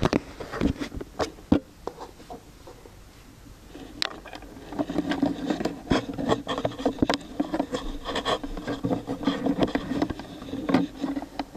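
Lego rubber-band machine gun mechanism clattering: sharp plastic clicks throughout, and from about five seconds in, a fast run of clicks over a steady buzzing hum.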